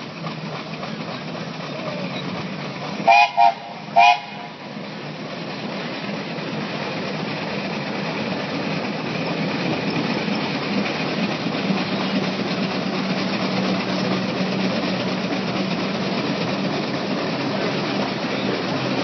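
Foden 8 hp steam traction engine: three short toots of its steam whistle about three seconds in, then the steady sound of the engine working as it pulls the sled, slowly growing louder.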